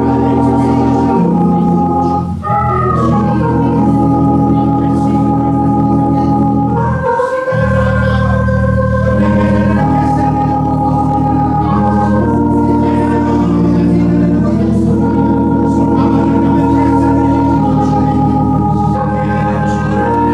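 Organ playing slow, held chords that change every second or two, breaking off briefly twice.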